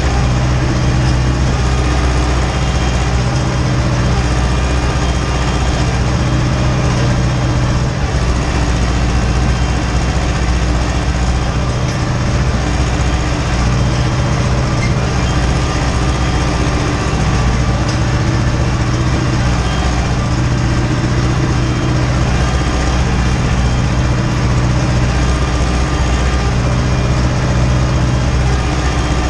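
Ursus tractor's diesel engine running steadily under load while pulling a cultivator across the field, heard from inside the cab.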